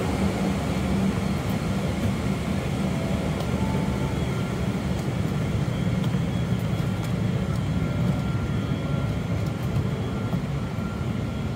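Steady hum and rush of air-conditioning in a parked airliner's cabin during boarding.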